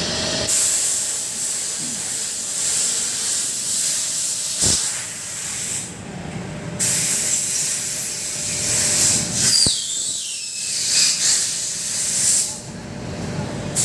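Pressurized spray hissing in long stretches, broken by short pauses about six seconds in and again near the end, with two sharp clicks in between.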